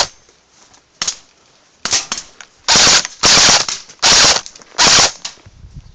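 Airsoft rifle firing four short, loud bursts in quick succession, starting a little before halfway, each about half a second long with short gaps between. A few fainter sharp clicks come before them.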